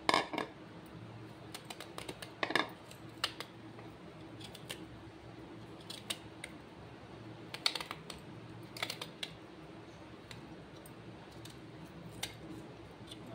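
Serrated peeler scraping the skin off a firm green ambarella, giving scattered sharp clicks and short scratches in small clusters a few seconds apart.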